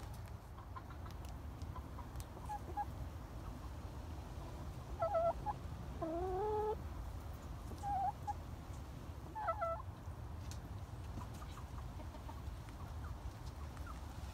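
Hens clucking: a few short clucks, then a longer call rising in pitch, then two more short clucks, over a steady low rumble.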